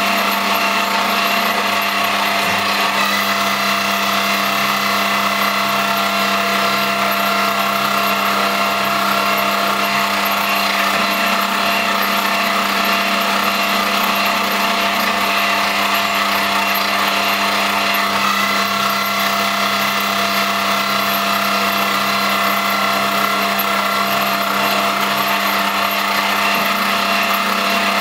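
X3 milling machine, set up as a home-made CNC lathe, running steadily: a constant whine of several steady tones over a mechanical gear-like rattle.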